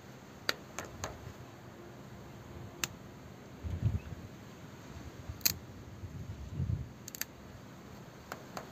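Pliers clicking and snapping on the plastic outlet fitting of a cooler water pump as the broken spout is broken off. There are scattered sharp clicks, several of them a second or more apart, and two brief low scuffs of handling near the middle.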